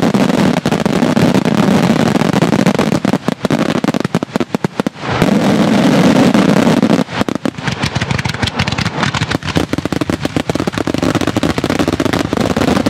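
Daytime fireworks going off in a dense barrage of loud bangs and rapid crackling reports. The barrage thins to separate cracks about three to five seconds in, then builds again.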